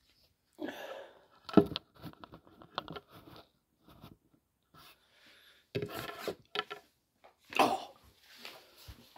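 Handling noise from a phone being set up and propped on a table: a sharp knock, scrapes and clothing rustle, then more rustling and a thump as a person gets up from the seat near the end.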